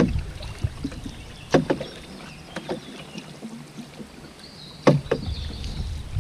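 Canoe paddling: a paddle dipping and splashing in the river, with two sharp strokes about a second and a half in and about five seconds in standing out, over a low rumble that eases off in the middle.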